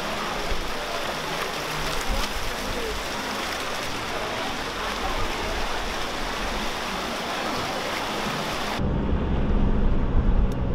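Fountain jets splashing into a shallow pool, a steady hiss of falling water. About nine seconds in it cuts abruptly to the low rumble of car engine and road noise.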